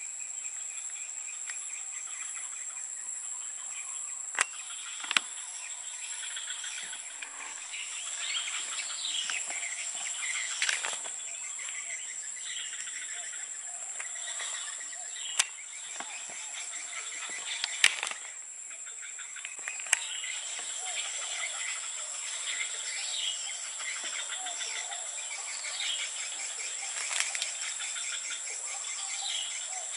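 Forest ambience: a steady high-pitched insect drone under bird chirps and calls that come and go, with a few sharp clicks.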